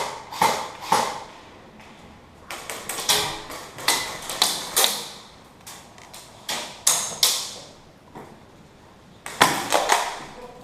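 Airsoft electric guns (AEGs) firing single shots and short strings, with BBs smacking and pinging off hard surfaces. The sharp cracks come irregularly, about fifteen in all, often two or three close together.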